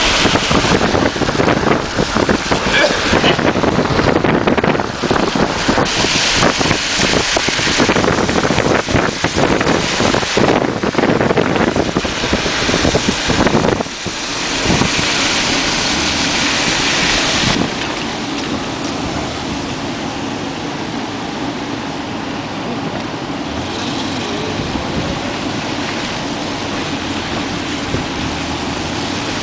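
Wind buffeting the microphone over the rushing noise of a moving car. About halfway through, the buffeting gives way to a steadier rush with a low hum.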